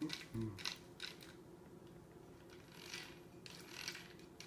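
Old radio-controlled buggy chassis and drivetrain parts clicking and rattling as they are handled, a few sharp clicks in the first second and a half, then softer rattling.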